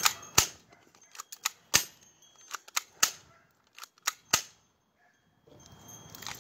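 A quick, uneven series of about a dozen sharp clicks and snaps, followed by a lull of about a second near the end.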